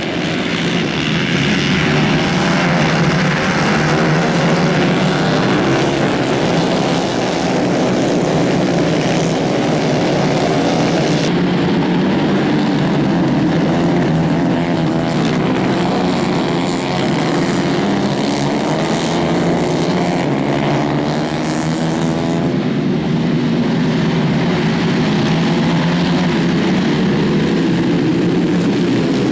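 A pack of 150 cc racing kart engines running together, a dense overlapping buzz whose pitches rise and fall as the karts accelerate and lift for the corners.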